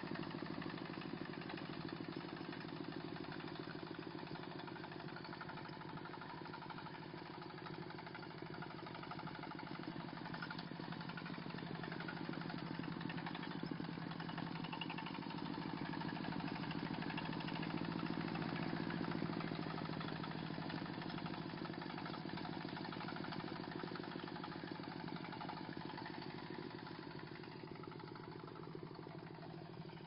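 Diesel engine of a crawler walking tractor running steadily under load while its potato harvester digs, a continuous rapid engine chatter that swells about halfway through and eases off near the end.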